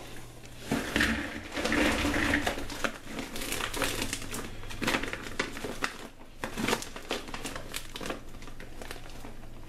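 Green peanuts in the shell pouring out of a crinkling bag into a plastic bowl in a sink, the shells rattling and clattering in a dense run of small clicks.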